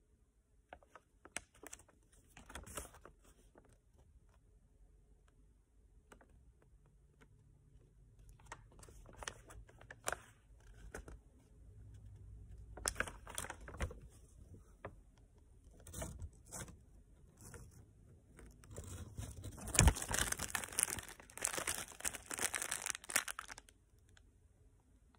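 A large sheet of paper rustling and crinkling as it is handled, in irregular bursts, with a longer, louder spell of crinkling near the end.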